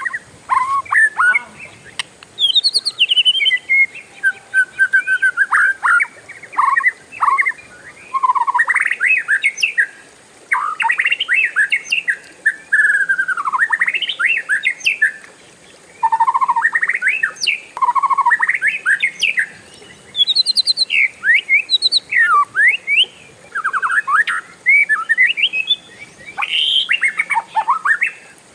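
Oriental magpie-robin (kacer) singing a long, varied song of loud whistles, rising and falling slides and rapid trills, in runs broken by short pauses: the continuous 'ngerol' song prized in kacer keeping.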